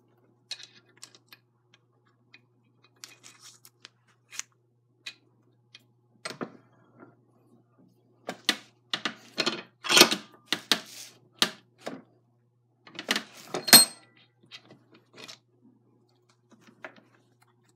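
Bench vise being worked by hand to press a steel cross pin into an RC drive shaft: a string of sharp metallic clicks and clacks from the vise handle and parts, thickest and loudest between about eight and fourteen seconds in, with two louder clacks near ten and fourteen seconds.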